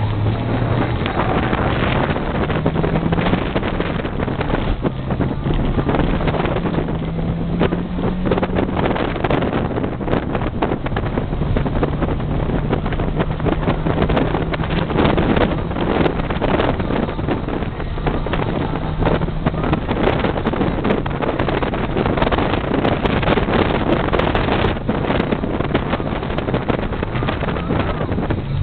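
Opel Kadett's engine and loud aftermarket exhaust with a switchable muffler, heard from inside the cabin while driving hard. The engine note climbs, drops at a gear change and climbs again over the first several seconds, then holds steadier at cruising revs, with wind noise over the top.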